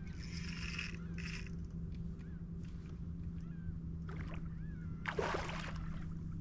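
Water splashing around a fishing kayak, twice, the second splash louder, over a steady low hum, with small birds chirping.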